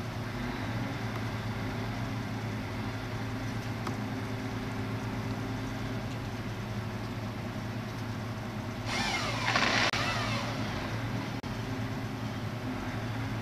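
The diesel engine of the crane working the grapple boom runs steadily at a low hum. About nine seconds in, a brief louder whining, squealing noise rises and falls for about a second and a half.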